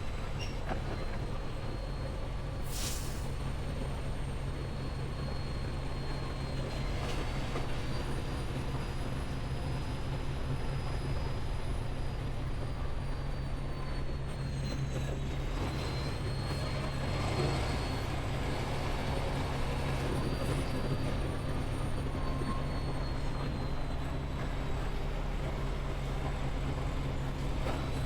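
Semi-truck running down the road: a steady low engine drone and road noise, with a faint high whine that slowly rises and falls. A brief high hiss comes about three seconds in.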